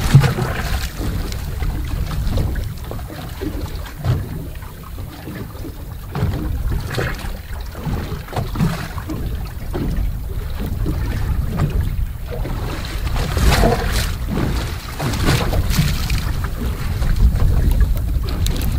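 Wind rumbling on the microphone over waves lapping against the hull of a small boat, with a few louder gusts or slaps in the second half.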